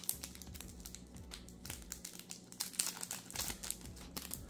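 Thin plastic wrapping on a pack of photo cards crinkling as fingers handle and peel it open, a run of small irregular crackles over a faint steady low hum.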